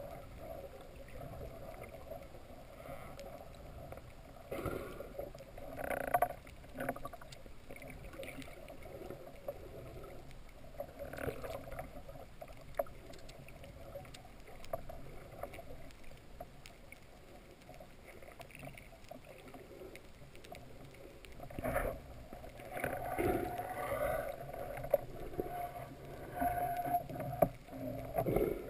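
Muffled underwater ambience heard through a camera housing, with scattered swishes and knocks that come thicker and louder in the last several seconds.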